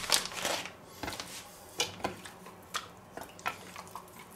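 A thin plastic bag rustles briefly, then come scattered small squelches and clinks as a raw pork steak is pressed and rubbed by hand in marinade paste in a stainless steel bowl.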